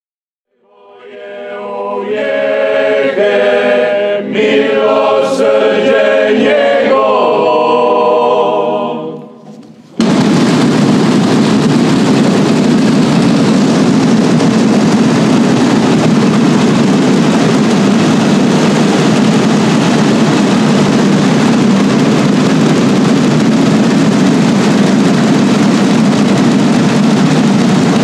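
A choir sings a hymn that dies away about nine seconds in. A second later a loud, dense, unbroken drum roll from a group of drummers starts abruptly and keeps on steadily: the traditional Good Friday drumming that stands in for the church bells.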